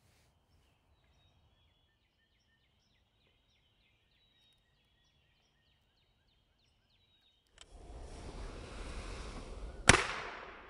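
A single sharp metallic click from the lock of a .54 calibre Greene twist-barrel rifle as its hammer is worked by hand, coming near the end. Before it, faint high birdsong, then a steady outdoor noise that starts suddenly about three-quarters of the way in.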